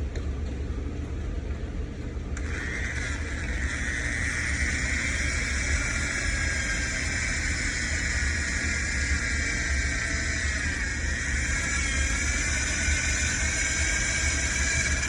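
Electric drill boring into a vending machine's metal barrel lock. About two seconds in, a high, wavering squeal of the bit cutting the lock starts; it holds for over ten seconds and stops abruptly at the end.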